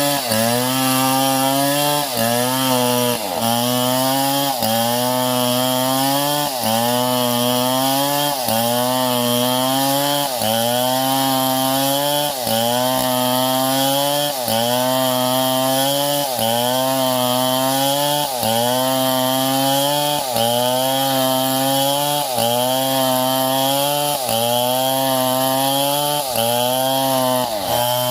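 Small chainsaw engine running hard while cutting wood, its pitch dipping and recovering in a steady rhythm about every two seconds as the chain bites and frees.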